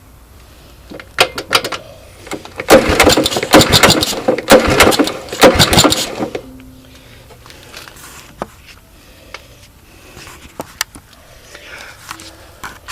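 1981 Honda ATC 185S single-cylinder four-stroke engine being yanked over with its recoil pull starter, a few hard pulls over about three and a half seconds. It turns over without catching: it will not fire on its own ignition system.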